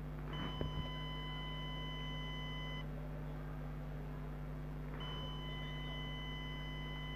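Steady electronic beep from a dog training collar's receiver unit, held for about two and a half seconds after a few handling clicks, then starting again about five seconds in and continuing.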